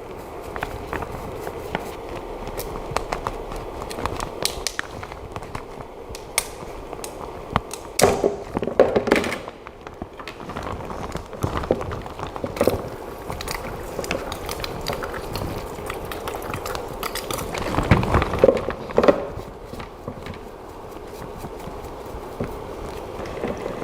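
Handling noises from cleaning a freshly printed resin part: scattered clicks, knocks and scrapes. There are two busier clusters, about eight and eighteen seconds in.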